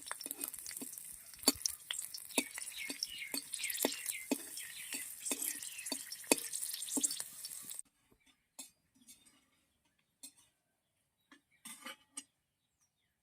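Garlic and chillies sizzling in hot oil in a wok while a spatula stirs them, knocking against the pan about twice a second. About eight seconds in, the sizzle cuts off abruptly, leaving a few scattered clinks.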